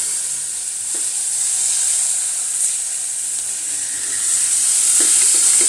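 Washed moong dal roasting in hot desi ghee in a pan, sizzling steadily with a few faint clicks, the sizzle getting louder about four seconds in. This 'chhan chhan' sizzle lasts until the dal is roasted, so it means the dal is not yet done.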